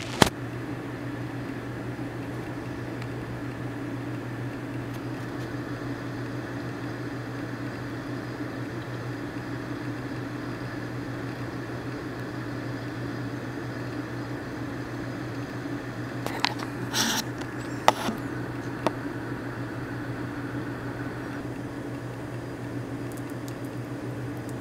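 A steady low mechanical hum. A sharp click sounds just after the start, and a few more clicks and knocks come about two-thirds of the way through.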